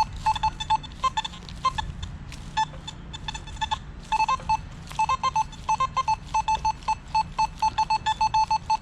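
Nokta Makro Simplex+ metal detector beeping with short mid-pitched tones as the coil sweeps over a target. The beeps are scattered at first, then from about halfway settle into a quick regular run of about four a second.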